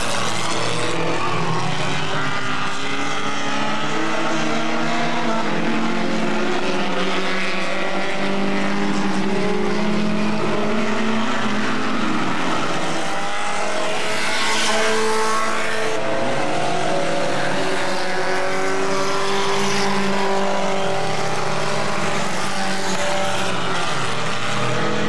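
Several Hornet-class stock cars racing around a short oval, their engines running together as a steady drone of overlapping, shifting pitches. A brief louder rush comes a little past halfway.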